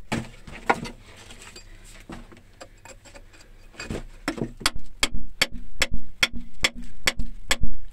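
Hammer striking a steel chisel set into a rock wall, sharp metallic taps. There are a few blows near the start and a quieter lull with small scrapes and clicks. Then steady strikes come about three a second from about four seconds in.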